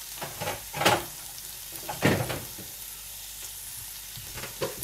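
Stir-fry of onions, peppers and haloumi sizzling steadily in a frying pan, with three brief louder noises about a second in, about two seconds in, and near the end.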